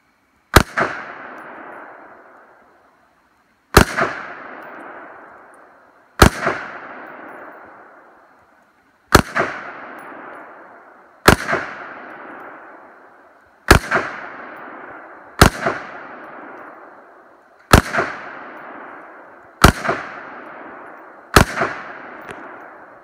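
Ruger AR-556 semi-automatic rifle fired ten single shots, spaced about two seconds apart. Each sharp report is followed by a quick echo and a rolling tail that dies away over a second or more.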